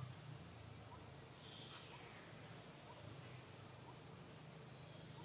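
Faint, steady, high-pitched trill of insects, with a low hum beneath.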